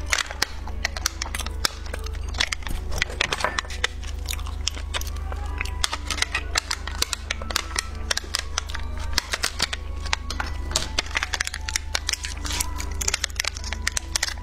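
Close-miked crunching and crackling of hard candy and crinkling plastic candy wrappers, a dense run of sharp crackles throughout, over faint background music.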